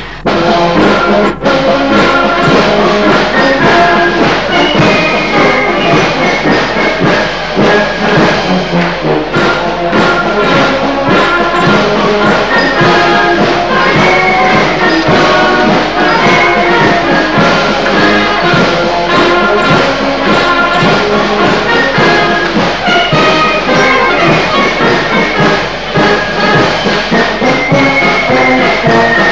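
Brass band music, trumpets and trombones playing a melody in held, stepping notes; it cuts in abruptly at the start, with a brief click about a second and a half in.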